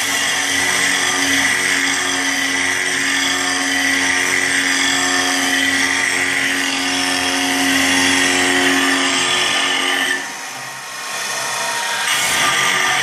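Small CNC milling machine's spindle running as the end mill cuts a circular pocket by circular interpolation: a steady whine with cutting noise. The sound drops briefly about ten seconds in, then comes back.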